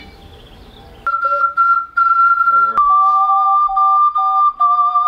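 Two ocarinas playing a duet, starting about a second in: a higher melody over a lower harmony part, in held, nearly pure notes with short breaks between them.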